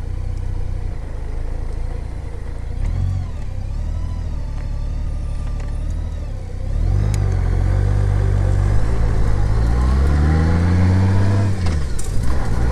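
2016 Honda Gold Wing's flat-six engine running at low speed while the motorcycle is turned around, then pulling away: the engine note rises steadily for a few seconds and drops back near the end.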